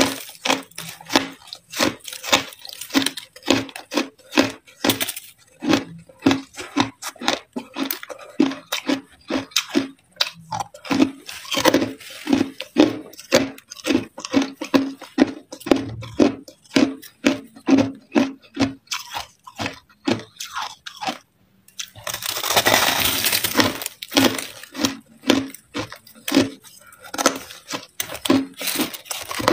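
Crushed ice, frozen into a hard block, being chewed close up: sharp crunches a couple of times a second. A little over two-thirds of the way through the crunching stops for a moment, then comes a few seconds of denser, rougher crunching before the steady chewing resumes.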